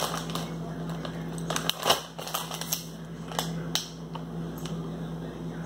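Snack packages being handled and sorted: scattered crinkles, rustles and light taps of plastic packaging, over a steady low hum.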